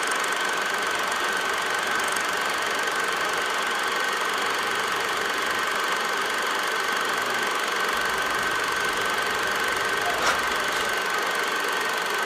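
A steady mechanical drone with a thin high whine held at one pitch, and a faint click about ten seconds in.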